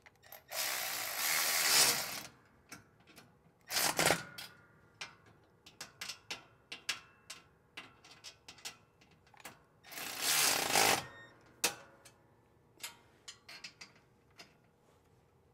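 Cordless ratchet running in two bursts, the first about a second and a half long and the second about a second, spinning flange nuts onto carriage bolts. Between them come a sharp knock and scattered clicks and clinks of metal parts being handled.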